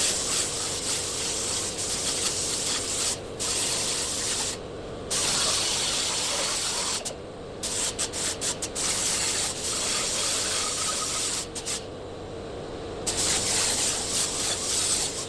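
A power tool cutting sheet-metal body panel, a harsh hiss that runs in stretches and stops briefly several times as the cut goes on.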